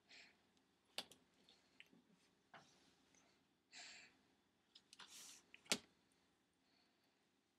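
Faint rustling of clothes and a couple of sharp clicks as a cat shifts and scrabbles about in a plastic laundry basket. The clicks come about a second in and again near six seconds.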